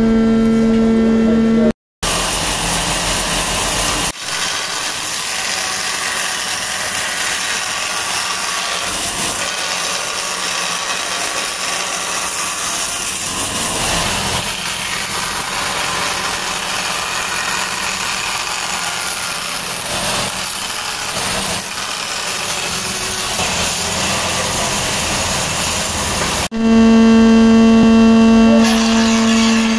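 Woodworking machinery running: a steady hissing machine noise fills most of it, broken by a brief dropout near two seconds in. Near the end a jointer planer's motor starts humming loudly at a steady pitch as a strip of wood is fed across it.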